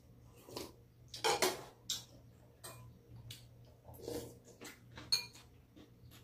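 Metal spoons clicking against bowls and soup being sipped while eating: scattered light clinks, with louder ones about a second and a half in and again about five seconds in.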